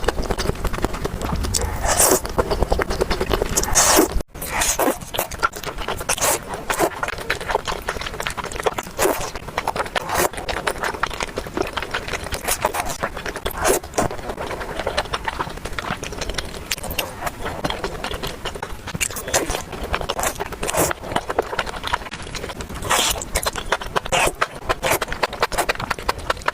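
Close-miked eating sounds: chewing with many irregular wet smacks and crunchy clicks. The sound cuts out briefly about four seconds in.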